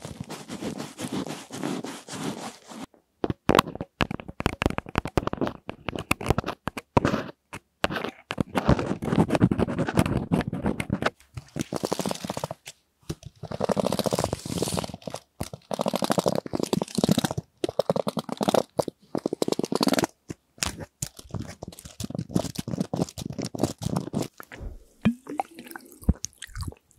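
Close-miked ASMR trigger sounds: long nails tapping and scratching on a padded fabric pouch, then fast rattly typing on a slim keyboard, and near the end a plastic sparkling-water bottle being handled.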